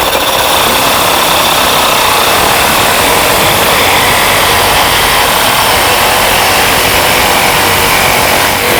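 Power tool cutting a piece of metal bracket stock down to size, running loud and steady throughout.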